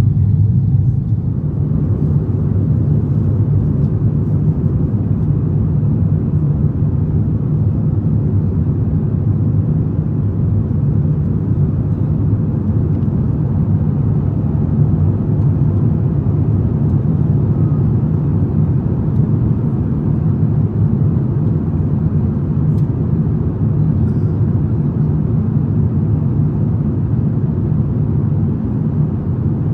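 Steady low drone of an Airbus A350-900's Rolls-Royce Trent XWB engines and rushing airflow, heard inside the passenger cabin as the jet reaches cruise.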